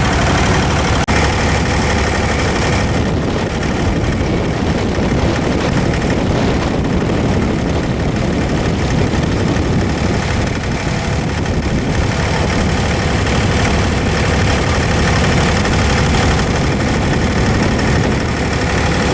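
Diesel engine of an abra, a wooden Dubai Creek water taxi, running steadily with a deep, even engine sound.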